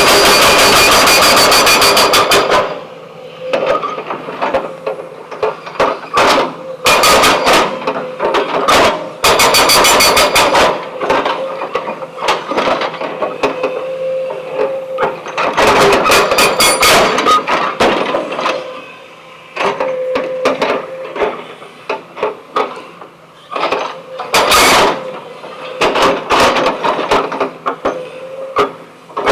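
Remote-control toy backhoe loader working stones: a dense steady noise for the first couple of seconds cuts off. Irregular bursts of clattering and knocking from stones follow, over a faint steady whine from the model's small motors.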